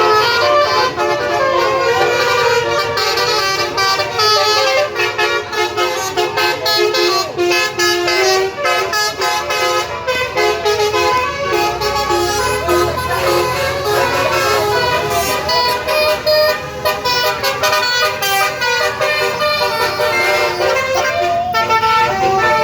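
Bus 'telolet basuri' horns, a bank of roof-mounted trumpet air horns, playing a continuous stepping melody.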